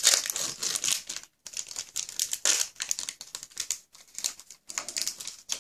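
Foil wrapper of a Pokémon TCG booster pack crinkling in irregular bursts as it is handled and opened, with a few brief pauses.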